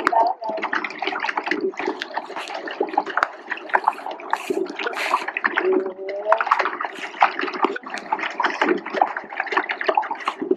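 Water splashing and sloshing close to the microphone: a dense, uneven run of small splashes with a faint steady hum beneath.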